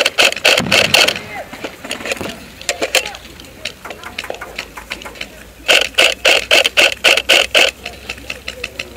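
Airsoft gun firing rapid shots, about five a second. A burst that ends about a second in is followed by a second burst of about two seconds near the six-second mark, with scattered lighter clicks between them.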